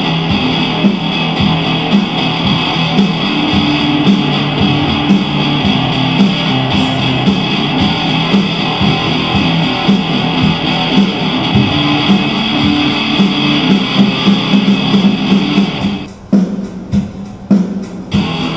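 Background music led by guitar, with a steady beat; it thins out for a moment near the end, then carries on.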